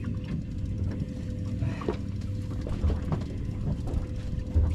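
Outboard motor idling, a steady low hum with a faint steady whine, with scattered light clicks and knocks of gear being handled on the boat.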